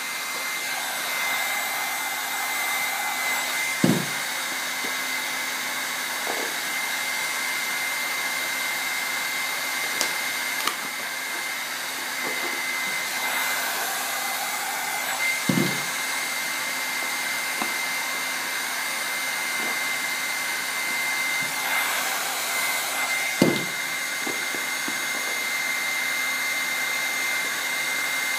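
Electric heat gun blowing steadily, a whooshing air flow with a thin steady whine, as it heats carbon-fibre-look vinyl wrap to soften it for stretching over a curved cycle wing. Three dull thumps come at intervals.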